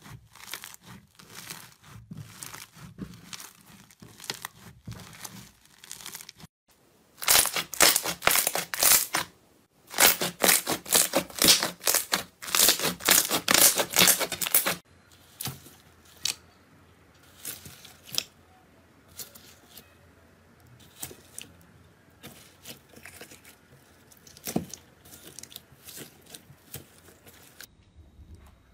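Slime being kneaded and squeezed by hand, starting with foam-bead slime (floam): a run of crackling and popping. It is softer at first, dense and loud in the middle, then thins to sparse quiet pops.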